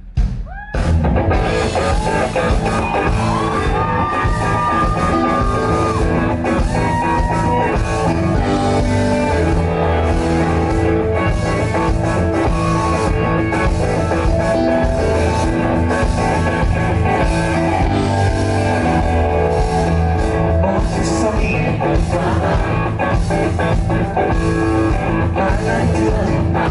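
Live rock band playing at full volume: drum kit, bass and guitars, with the band coming in fully about a second in.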